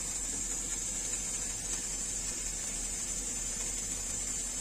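Steady, high hiss of steam escaping from a closed stainless steel idli steamer pot at a full boil.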